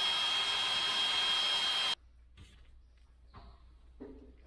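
Cordless drill spinning a hole saw into a painted metal plate clamped in a vise: a steady whir with a high ringing tone that stops suddenly about two seconds in. Faint handling sounds follow as the drill is lifted away.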